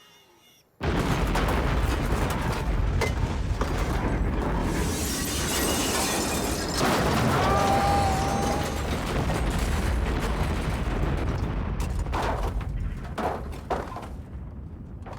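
A huge high-explosive blast goes off suddenly about a second in, after near silence. The explosion continues for many seconds with debris crashing and shattering, then thins out near the end into scattered knocks of falling pieces.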